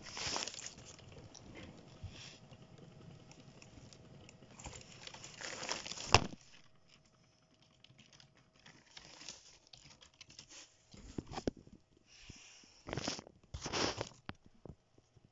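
Handling noise of a phone held in the hand: fingers rubbing and rustling over the microphone, with one sharp knock about six seconds in. After a quieter stretch, more short bursts of rubbing come near the end.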